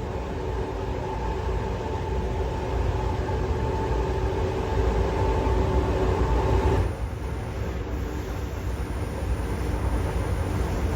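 Train running along the line with a deep, steady rumble and a steady whine over it; the whine cuts off suddenly about seven seconds in while the rumble carries on.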